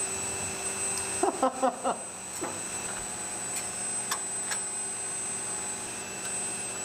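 Large-format pellet extruder on a KUKA robotic arm running at full print speed: a steady hum with a thin high whine, and a few light clicks around the middle.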